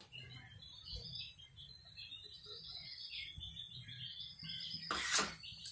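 Faint, irregular high chirping in the background, with a short clatter of a dish being handled about five seconds in.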